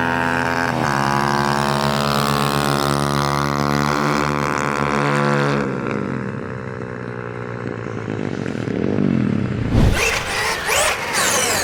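Small motorcycle-type engine running at steady high revs, easing off and dropping in pitch about six seconds in. Near the end comes a burst of rushing noise with quick rising and falling whines.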